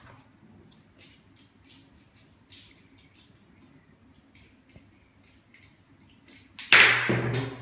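Faint small clicks and light rattling of a slider motor unit and its screw being handled by hand. Near the end comes a brief, much louder burst of rustling handling noise.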